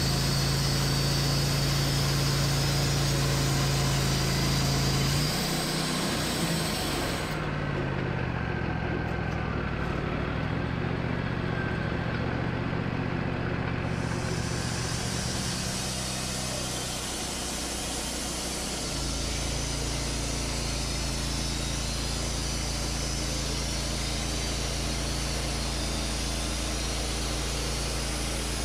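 Wood-Mizer LT40 portable bandsaw mill running, its engine driving the band blade through an ash log. The engine note shifts in pitch about six seconds in and settles into a different steady tone about nineteen seconds in.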